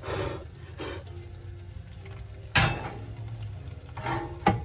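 A few knocks and clatters of cookware being handled, over a low steady hum.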